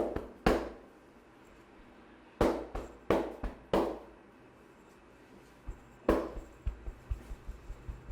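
Massage slaps of a barber's hands striking the customer's body: loud single slaps spaced half a second to two seconds apart, then a quicker run of lighter taps near the end.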